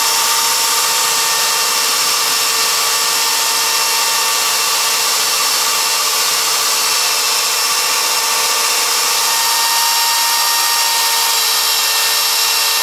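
Corded electric drill running at a steady speed, turning a keel drive train with meshing white plastic bevel gears. It is a continuous, even whine, and it is burning in the new bearings.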